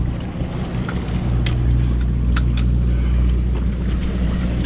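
A sportfishing boat's engine running with a steady low drone, with scattered short clicks and knocks from the deck.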